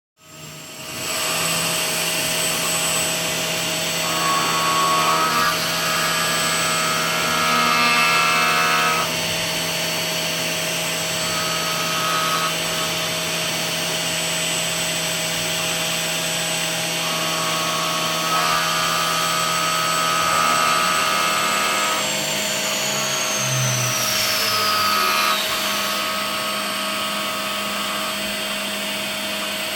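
Hurco VMX42SR five-axis CNC machining center running and machining: a steady, loud machine noise with a high whine and several steady tones, plus stretches of higher tones coming and going. About three-quarters of the way through, the high whine falls in pitch.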